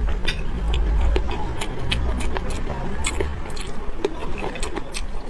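Close-miked chewing of raw chili peppers and egg, with many short, sharp crunching clicks over a low rumble.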